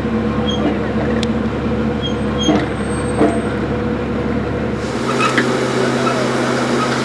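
A steady engine drone with a low hum and a few faint clicks. Its tone changes suddenly about five seconds in.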